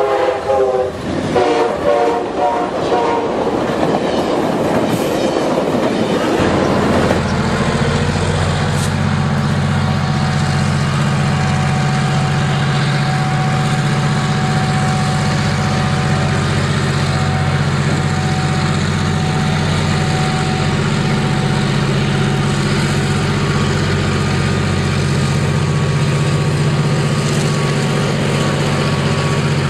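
Amtrak Genesis diesel locomotive sounding its horn for a few seconds as it passes, over the rush of the passing train. About seven seconds in, a diesel switcher locomotive takes over, its engine running steadily as it pulls freight cars slowly past.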